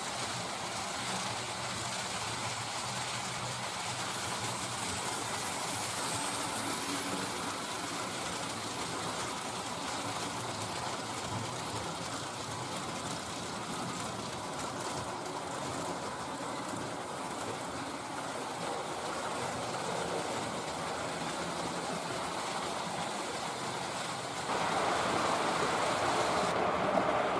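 H0-scale model freight train of rolling-highway wagons carrying model trucks, running steadily along the layout's track with a continuous running noise of wheels on rails. The sound gets suddenly louder about 24 seconds in.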